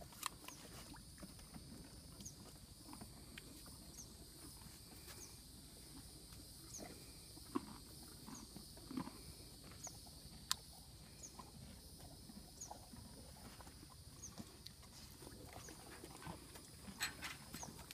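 Horses eating carrots and apples: faint scattered crunches and snuffles. A short high chirp repeats every second or so in the background.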